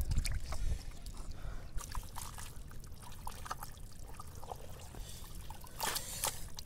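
An arm squelching and sloshing in wet mud and shallow muddy water while groping in a hole, with small wet splashes and drips. A louder slosh comes near the end.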